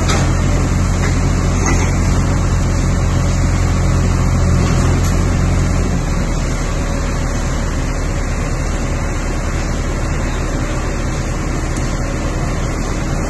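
Backhoe loader's diesel engine running steadily, heard over a dense wash of street noise. Its low drone drops off somewhat about six seconds in.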